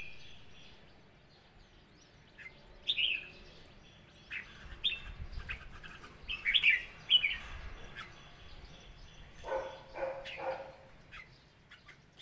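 Red-whiskered bulbuls calling: short, sharp chirps and quick falling notes, scattered irregularly, loudest in a cluster about six to seven seconds in.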